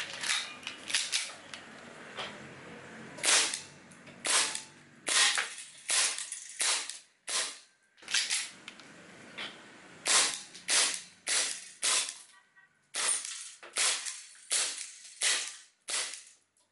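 Airsoft gun firing repeatedly into an aluminium drink can: about two dozen sharp pops at an uneven pace, roughly one or two a second, as BBs punch dents and holes in the can.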